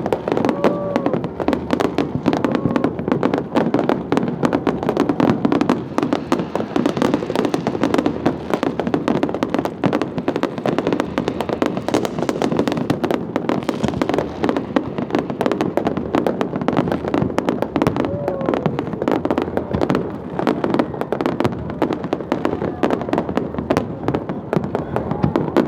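A dense, unbroken barrage of fireworks: many bangs and crackles overlapping, with no let-up.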